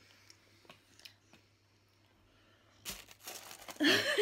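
Candy wrapper and packaging crinkling as a wrapped candy bar is picked out of a box, starting suddenly about three seconds in after a quiet stretch with a few faint ticks.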